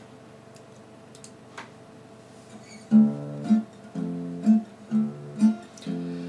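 Faint steady hum, then about halfway through an acoustic guitar comes in with a song intro: chords strummed with accented strokes about twice a second.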